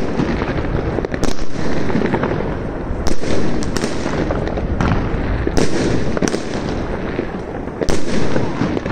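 Aerial fireworks going off in a continuous din of crackling and rumbling, with about six sharp bangs of bursting shells, roughly one to two seconds apart.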